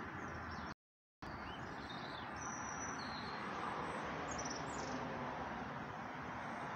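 Outdoor ambience: a steady hiss of background noise with a few faint bird chirps. About a second in, the sound cuts out completely for a moment.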